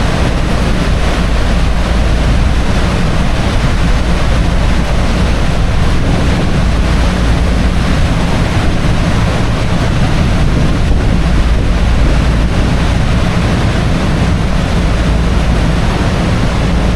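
Steady, loud rush of wind and falling water buffeting the microphone, with a deep rumble underneath.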